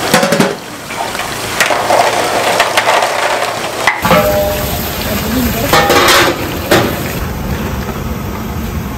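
Boiled eggs knocking together and water sloshing as a gloved hand stirs them in a large pot. About four seconds in the sound changes abruptly to kitchen clatter of a stainless steel pot and rustling.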